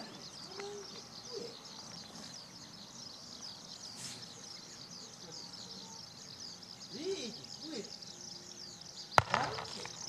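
Skylark singing a continuous, rapid, high warbling song. A single sharp click about nine seconds in is the loudest sound.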